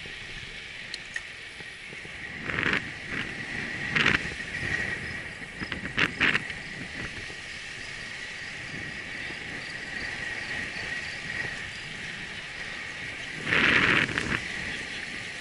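Bicycle riding along a paved path at about 23 km/h: steady tyre and wind noise on the bike-mounted camera, broken by a few short louder jolts, the longest about two seconds before the end.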